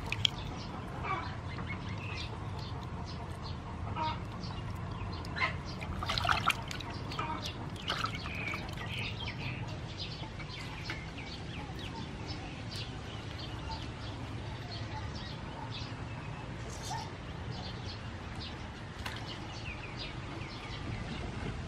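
Hands rubbing and squeezing raw octopus in a metal basin of salted water to scrub it clean: wet squelching and small splashes with irregular sharp clicks, a few louder splashes in the first seven seconds.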